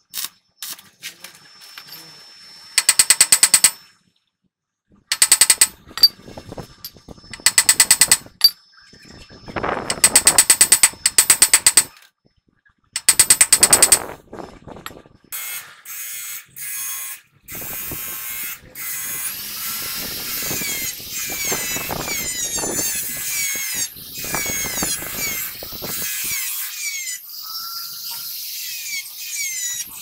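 Stick-welding arc crackling in short bursts of about a second, several times, as weld is laid onto a steel wheel-hub spindle. About halfway through a die grinder with a conical grinding stone takes over, grinding the weld down in a continuous high whine that dips repeatedly as the stone bites.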